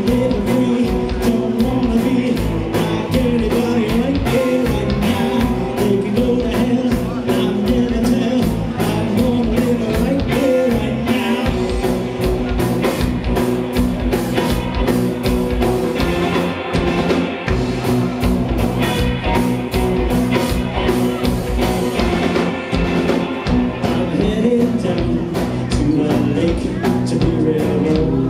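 Rock band playing live: drum kit and electric guitars, loud and continuous, with steady drum hits throughout.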